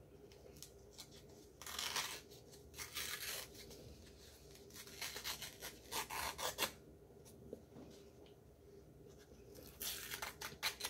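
Paper container being torn and peeled away from a packed block of cornstarch, heard as four bouts of rustling, scraping and tearing.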